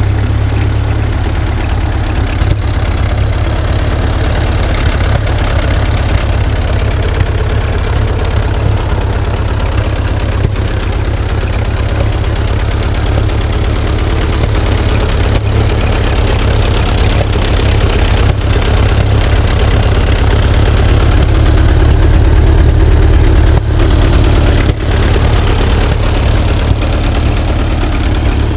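1930 Ford Model AA four-cylinder engine running steadily in a doodlebug tractor, deep and loud, growing somewhat louder past the middle; the engine runs after years of sitting unused.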